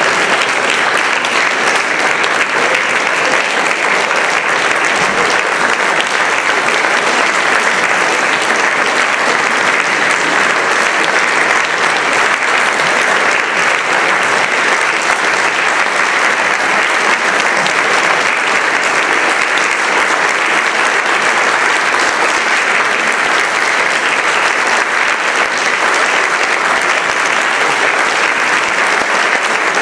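Audience applause: dense, steady clapping.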